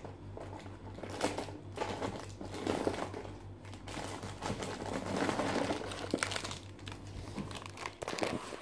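Packaging crinkling and rustling as it is handled, in irregular bursts with short crackly snaps, over a faint steady low hum.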